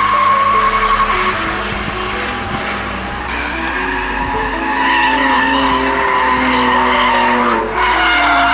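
BMW cars drifting: tyres screeching in a sustained squeal over engines held at high revs. The sound dips briefly near the end, then a new squeal starts.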